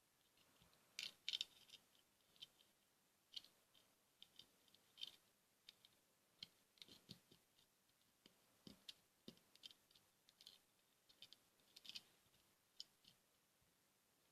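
Faint, scattered clicks and taps of plastic LEGO pieces being handled and pressed into place, with a small cluster about a second in.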